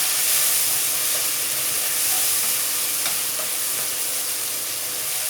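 Food frying in hot oil in a pan: a steady, even sizzle.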